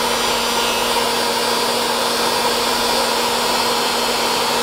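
Handheld electric heat gun running steadily, its fan blowing air with a steady hum underneath.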